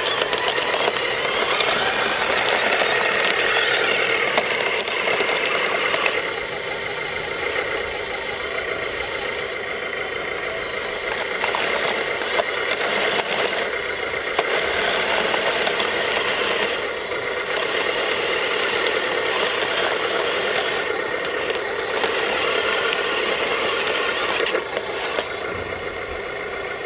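Lesu DT60 RC bulldozer's electric drive motors and gearboxes running with a steady high whine, over the rattle of its gears and crawler tracks as it moves.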